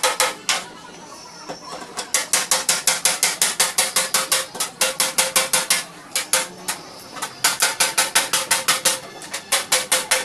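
Hand ratchet wrench clicking in quick runs of about six to seven clicks a second, with short pauses between runs, as a bolt is turned.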